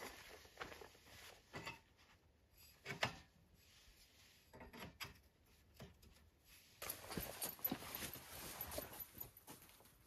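Faint scattered clicks, knocks and rustles from a canvas wall tent and its tarp being handled, with one sharper knock about three seconds in and a longer stretch of rustling in the last few seconds.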